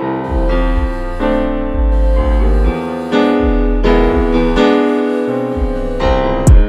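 Electric piano music: sustained chords over a strong bass line, changing every half second or so. A loud low falling swoop comes just at the end.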